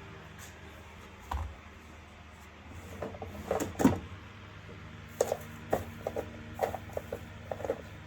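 Hard knocks and clicks from parts of a vacuum cleaner being handled during repair work: a low thump about a second in, a cluster of louder knocks around the middle, then a quick run of sharp clicks near the end, over a steady low hum.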